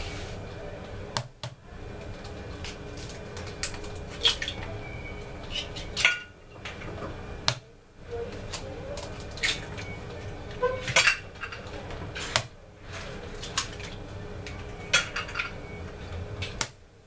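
Eggs being cracked against the rim of a hard mixing bowl: a string of irregular sharp knocks and clinks, some ringing briefly.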